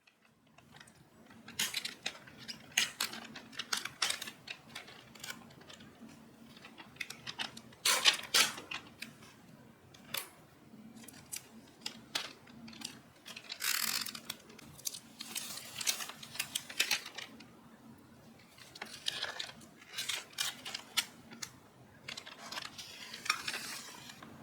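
Kitchen handling sounds: irregular clicks, clinks and rustles as utensils and packaging are handled during food prep, with a faint steady hum underneath.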